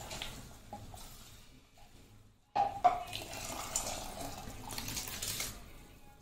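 Rice and water being scooped and then tipped from a plastic bowl into a steel pot of boiling water: splashing and pouring, louder from about two and a half seconds in, with one sharp clink just after.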